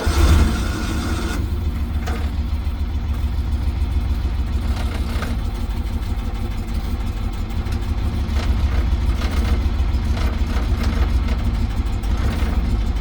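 Small gasoline engine of a mini excavator, choked, running with a rough, uneven low rumble.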